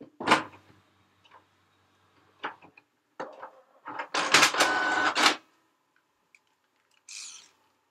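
Printer mechanism running in uneven spurts: a sharp clack just after the start, a few shorter clicks, then about a second and a half of dense mechanical running with a faint steady tone in it, and one short burst near the end.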